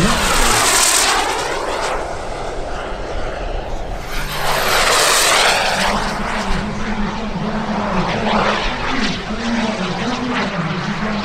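A radio-controlled model jet flying past twice: a loud rushing pass at the start, fading away, and a second one about four seconds in.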